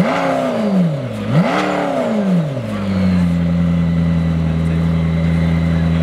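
McLaren P1 GTR's twin-turbo V8 idling, blipped twice in quick succession: the pitch rises and falls back with each rev, the second a little higher than the first, then it settles into a steady idle.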